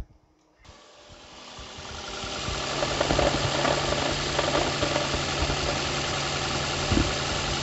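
Toyota Camry Hybrid's four-cylinder petrol engine idling with a knocking in the engine. It comes in about half a second in, builds over the next two seconds, then runs steadily with irregular knocks and one stronger knock near the end.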